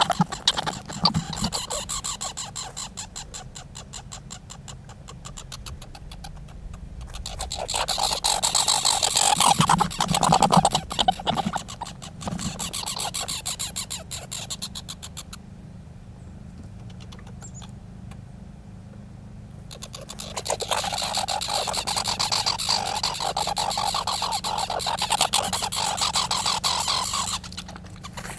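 Squirrels chattering: long bouts of rapid, harsh, raspy pulses, with a quieter stretch in the middle before the chatter starts up again and runs until shortly before the end.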